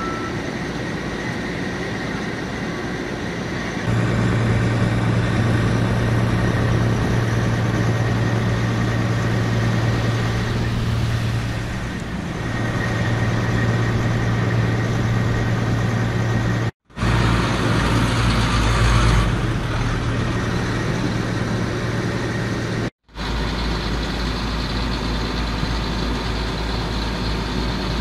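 Heavy truck engines idling: a steady low engine drone that grows louder about four seconds in and cuts out briefly twice.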